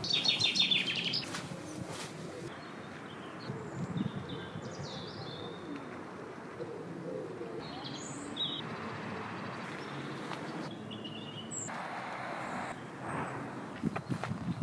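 Small birds chirping, opening with a quick, loud run of high chirps and followed by scattered short calls over quiet outdoor background noise.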